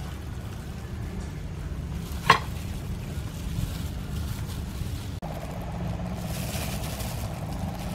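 A steel kitchen knife set down on a wooden chopping board with one sharp, ringing knock about two seconds in, over a steady low rumble.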